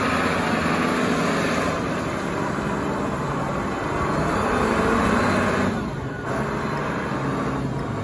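Caterpillar forklift engine running as the machine drives and turns, a steady engine hum that swells slightly around five seconds and dips briefly about six seconds in.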